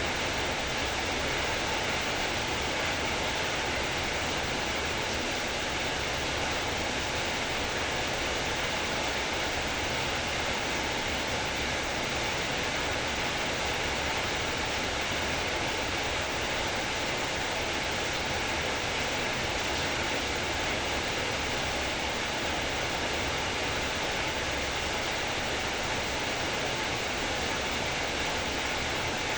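Heavy rain falling in a steady, even hiss, with no separate drops, thunder or other events standing out.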